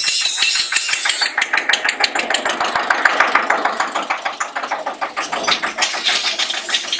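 Farm tractor engine running as it drives past close by towing a trailer, with a fast, even beat that grows louder towards the middle and then fades.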